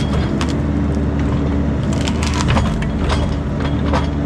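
Bobcat compact excavator's diesel engine running steadily under load as its boom works into a juniper tree, with a string of sharp cracks and splintering from the tree's wood, thickest around the middle and again near the end.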